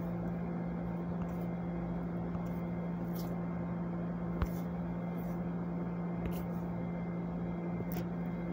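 A steady low machine hum with background hiss, broken only by a few faint short ticks.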